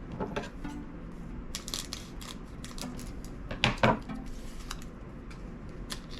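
Trading cards being handled and flipped through by hand: a run of light clicks and snaps, the loudest about four seconds in.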